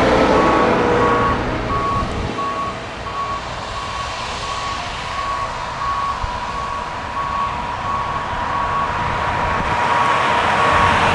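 Backup alarm of a Shuttlewagon railcar mover beeping steadily, about one and a half beeps a second, as it moves in reverse over the sound of its engine running.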